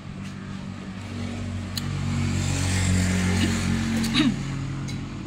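A motor vehicle's engine passing close by, growing louder over the first few seconds and then easing off.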